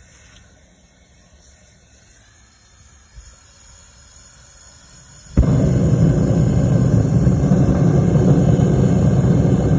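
Propane-fired melting furnace: a faint hiss of the gas flame, then suddenly, about five seconds in, a loud steady low roar as the burner fires into the furnace.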